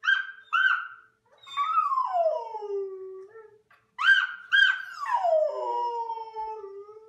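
Golden retriever howling: two long howls that slide down in pitch, each coming right after a pair of short high calls.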